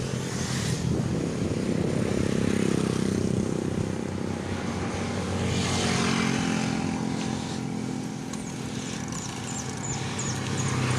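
Vehicle engine pulling hard under load on a steep uphill climb, running steadily with road and wind noise that swells about halfway through. A few faint high chirps sound near the end.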